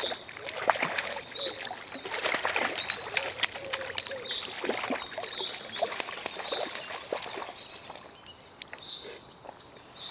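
Water splashing as a hooked char fights at the surface of the pond, with sharp clicks and several short bursts of rapid clicking. Birds chirp now and then.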